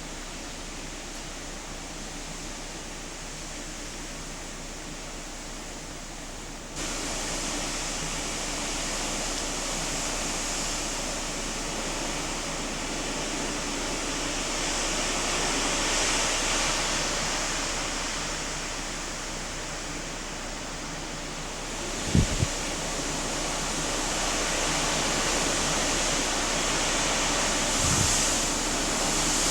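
Steady rushing noise of hurricane wind and rain. It gets louder suddenly about seven seconds in, then swells and eases, with two dull low thumps near the end.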